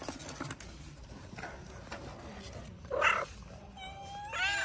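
A young kitten mewing: a few short, high cries near the end, rising in pitch. A short, louder noisy burst comes about three seconds in.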